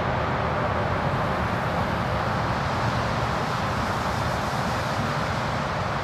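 Steady road-traffic noise, an even rumble and hiss with no bird calls standing out.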